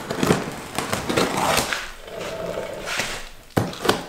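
A paper-wrapped cardboard shipping box being cut and torn open: wrapping paper and tape ripping and cardboard rustling and scraping, with two sharp knocks near the end.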